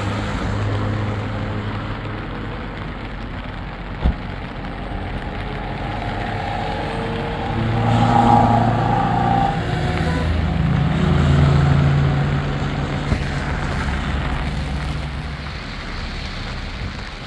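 Cars driving past on a wet road, one engine swelling loudest from about eight to twelve seconds in and then fading, over a steady hiss. A single sharp knock about four seconds in.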